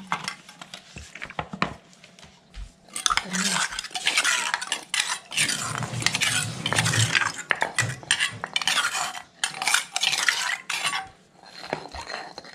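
A spoon scraping and clinking in a bowl as a wet chopped-chicken and chili-paste mixture is stirred together. A few scattered clicks come first, then about three seconds in a long stretch of steady scraping that stops near the end.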